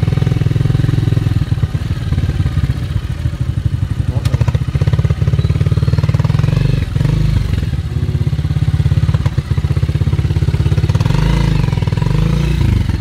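Motorcycle engine of a Philippine tricycle (motorcycle with sidecar) running steadily under way, heard from the sidecar.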